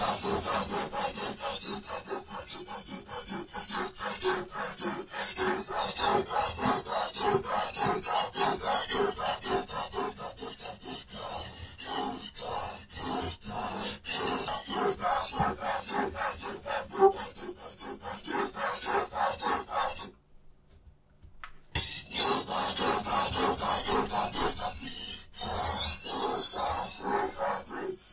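Steel knife edge being ground on a diamond sharpening stone in a Hapstone T1 guided sharpener: quick back-and-forth rasping strokes with a short pause about two-thirds of the way through, then more strokes.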